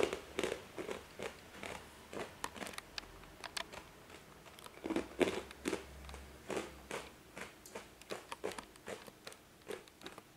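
A person chewing something crunchy close to the microphone: a run of short, crisp crunches, about two to three a second.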